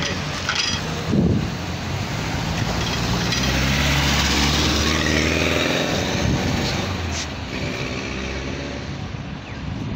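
Road traffic passing close by: an SUV and then a van drive past, their engines and tyres swelling to a peak about four to five seconds in and then fading.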